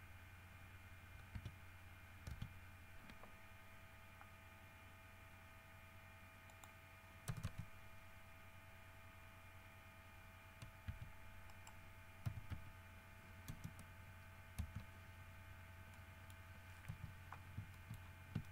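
Faint computer mouse and keyboard clicks, scattered irregularly, the loudest a pair about seven seconds in, over a steady electrical hum with a few faint constant whining tones.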